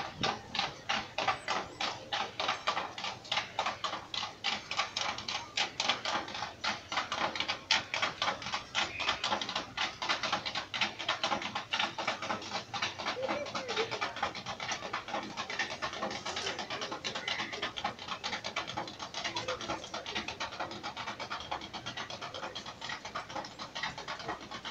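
Fast, regular rattling or shaking strokes, a few a second, blurring into a more even rattle in the second half.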